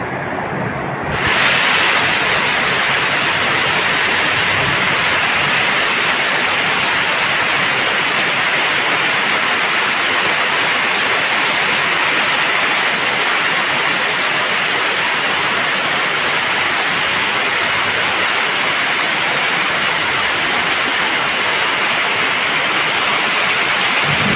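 Heavy rain pouring steadily onto wet paved ground and roofs. It grows louder and hissier about a second in, then holds.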